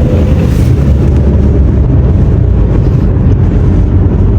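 A loud, steady low rumble that holds without change.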